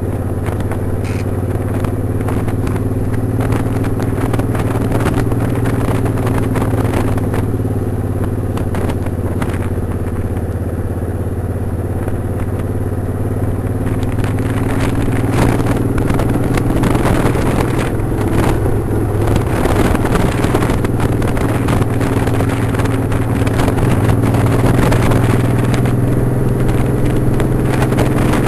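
Motorcycle engine running steadily at cruising speed, its pitch drifting only slightly, with wind rush growing louder in the second half.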